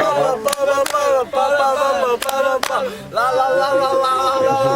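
Singing voices carrying a tune, with a long held note near the end and a few sharp clicks in between.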